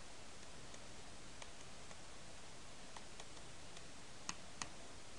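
Faint ticks and taps of a stylus on a tablet screen during handwriting, over a steady low hiss, with two slightly louder taps about four and a half seconds in.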